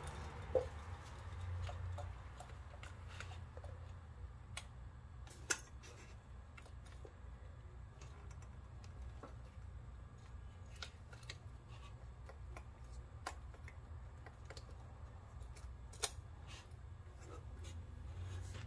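Faint scattered clicks and light taps of small engine parts being handled as a PCV valve is worked into place by hand, over a low steady hum.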